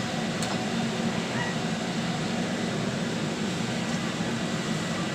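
Steady whirring hum of a kitchen fan running over food cooking on an induction hob, with a light click about half a second in.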